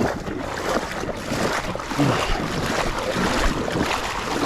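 Shallow marsh water splashing and sloshing around a wading angler and a freshly landed redfish, with wind buffeting the microphone.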